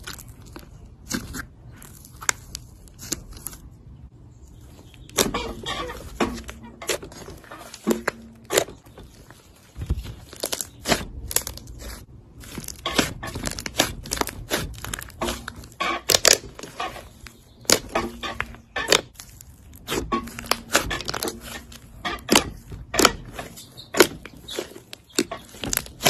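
Hands kneading, stretching and pressing a pink fluffy slime: squishing with many sharp clicks and pops of trapped air, and some tearing as it is pulled apart. The pops are sparse for the first few seconds, then come thick and fast.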